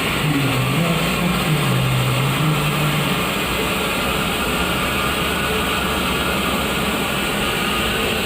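Toilet fill valve running with a steady hissing rush of water into the tank; a low wavering hum sounds over it for the first three seconds or so.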